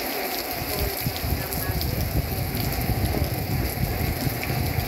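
Heavy tropical rain from Hurricane Julia falling steadily, with many separate drops pattering and a low rumble underneath.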